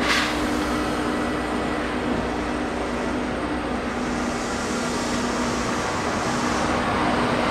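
Kintetsu 2610 series electric train starting to pull out of a station, moving slowly: a steady running hum with a couple of faint held tones.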